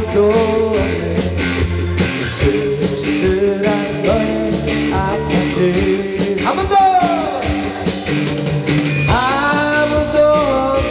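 Live rock band with electric guitar, keyboard and drums playing an upbeat Korean pop-rock song, a lead melody line gliding downward about midway through.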